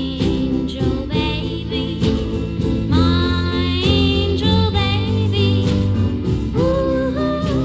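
A song playing: a woman's voice singing long, wavering held notes over a guitar-led band.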